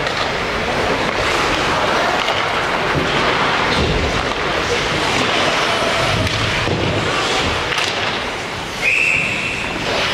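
Ice hockey game on the ice: skates and sticks under a steady arena din, then a referee's whistle blown once near the end, one steady blast about a second long, stopping play.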